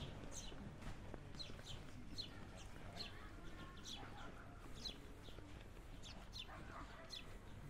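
Small birds chirping repeatedly: short, high calls that drop in pitch, one or two a second, over a low steady background hum.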